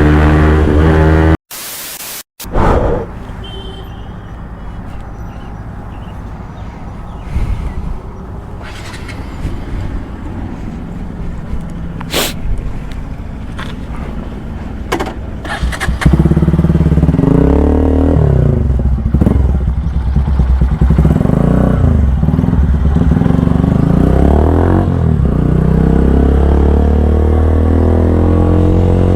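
Bajaj Pulsar N160's single-cylinder engine through a full-system aftermarket exhaust. It runs with a low uneven rumble and scattered clicks, then about halfway in it is revved loudly, the pitch climbing and dropping again and again. A loud tone at the very start cuts off suddenly.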